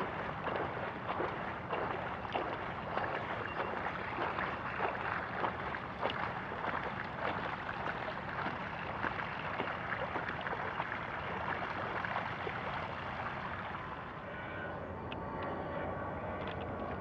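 Bicycle tyres rolling through shallow floodwater on a paved path: a steady rush of splashing and spray. About fourteen seconds in it drops to a quieter hiss of tyres on wet pavement with a few light ticks.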